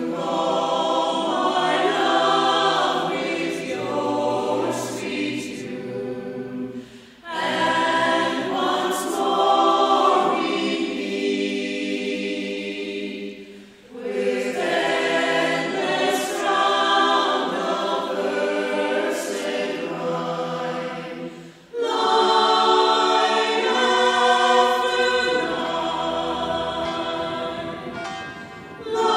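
Choir singing, in long phrases with short breaks between them.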